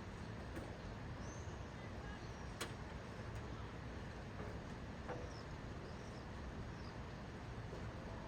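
Steady rain hiss with a low rumble under it, faint bird chirps now and then, and two sharp ticks, one about two and a half seconds in and one about five seconds in.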